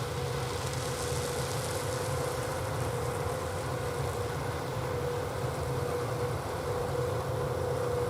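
John Deere 8000R tractor running steadily while pulling a peanut picker in harvest: a constant low engine drone with a steady mid-pitched hum over it.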